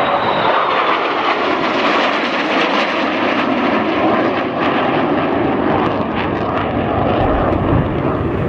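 F-35 fighter jets flying past in formation, their Pratt & Whitney F135 turbofans making a loud, steady jet roar. A high whine sinks slightly in pitch in the first second.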